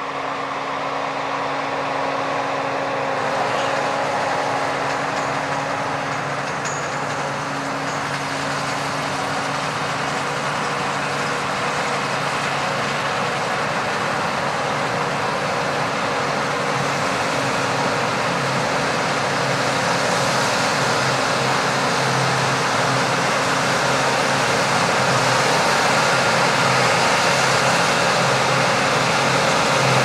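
John Deere 9780i CTS combine harvester running steadily while cutting wheat: a constant engine drone under broad machinery noise, growing slowly louder as the combine comes closer.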